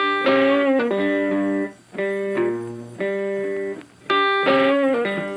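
Instrumental guitar music: plucked notes ringing out, struck again about once a second, some sliding in pitch.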